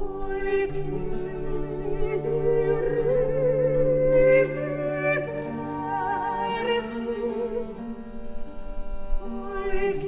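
A classically trained voice singing an Italian song with vibrato, over instruments holding a steady low note.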